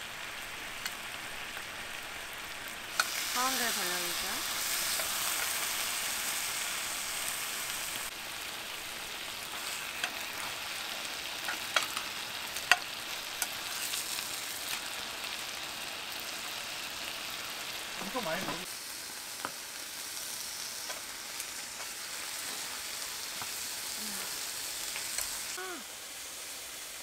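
Food frying in a hot pan, with a steady sizzling hiss that starts about three seconds in, is strongest for the next few seconds, and drops away near the end. Sharp pops and clicks are scattered through it.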